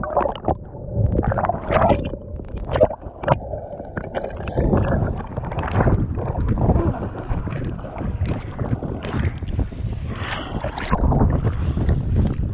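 Strong wind buffeting the microphone, with water splashing and slapping irregularly around a capsized kayak in rough, wind-driven water.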